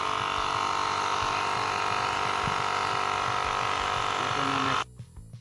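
Xiaomi Mijia Air Pump 2 portable electric air compressor running steadily while inflating a flat car tyre from zero toward 30 psi. It makes an even motor-and-piston hum and cuts off abruptly near the end.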